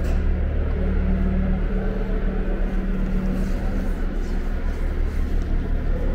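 A steady low rumbling hum, with a higher hum line that fades out about halfway through.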